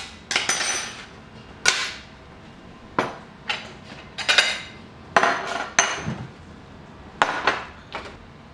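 Glass salt and pepper shakers knocked down on a café table in irregular groups of sharp clinking knocks, heard as Morse code tapping out the letters of 'Bogota'.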